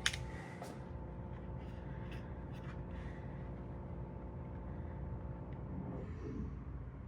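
Steady mechanical hum of a running heat pump system, with a few light clicks in the first seconds; a humming tone in it drops out about six seconds in.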